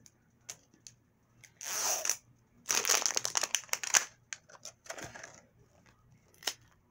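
Crinkly plastic wrapping being torn and crumpled off a small toy surprise ball. It comes in two crackling bursts, the second one longer and louder, followed by lighter crackles and a few clicks.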